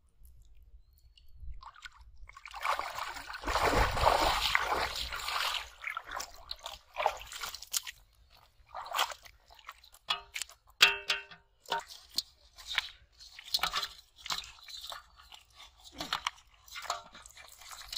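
Water splashing as someone wades and works in shallow, muddy water, loudest from about three to five seconds in. It gives way to a long run of short wet squelches, slaps and knocks as fish are pulled from a bamboo tube trap and handled in a plastic basin on wet mud.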